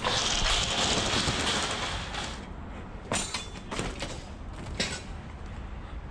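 Loud rustling and scraping of a jacket rubbing against a body-worn action camera's microphone for about two seconds as the wearer climbs. A handful of sharp knocks and steps follow from about three to five seconds in.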